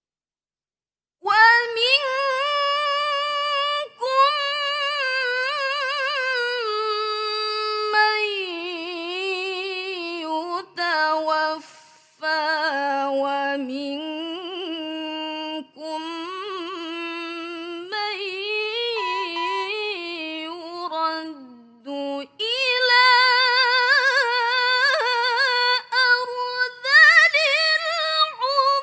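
A young woman reciting the Quran solo in the melodic mujawwad tilawah style, starting about a second in. She holds long notes with fast wavering ornaments and breaks off briefly for breath several times. Her voice dips into a lower register through the middle and climbs high again in the last few seconds.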